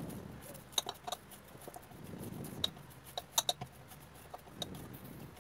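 Wheat-flour dough being kneaded by hand in a steel bowl: soft pressing and rubbing in a few swells, with a scatter of sharp clicks and taps against the metal.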